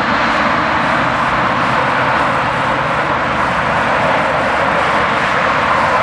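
Steady jet noise from a twin-engine airliner flying low with its landing gear down on approach to land.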